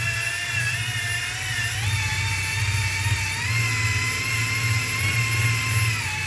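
Cordless drill spinning a 3M rubber eraser wheel against a vinyl decal on a personal watercraft hull, run at part throttle: a steady motor whine that steps up slightly in pitch about two seconds in and eases down a little near the end, over a low uneven rumble from the wheel on the surface.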